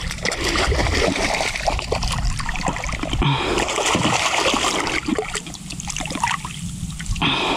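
Hooked bonefish thrashing and splashing at the surface beside a canoe as it is drawn in by hand, in uneven bursts, heaviest about three to five seconds in and again briefly near the end.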